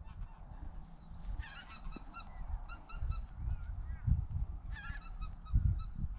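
Geese honking in two runs of quick, repeated calls, the first starting about a second and a half in and the second near five seconds. A couple of low, muffled bumps close to the microphone come in between and near the end.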